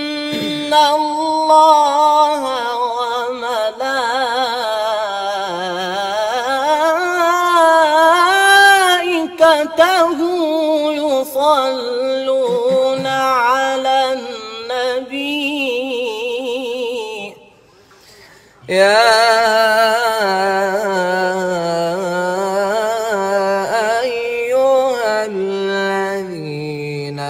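A man singing solo in a slow, chant-like style, with a wavering, ornamented melody. The voice breaks off for about a second roughly two-thirds of the way through, then resumes.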